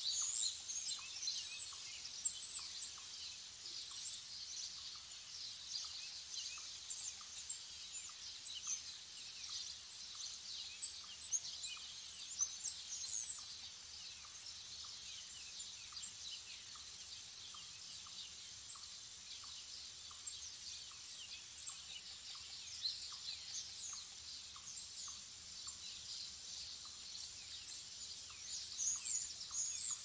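Woodland dawn chorus of many small songbirds chirping and trilling, busiest in the first half and again near the end. Beneath it, a faint short note repeats steadily, about once or twice a second.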